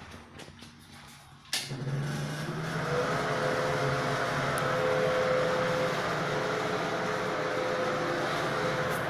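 An electric fan switches on with a sharp click and runs steadily, a whooshing noise over a low motor hum.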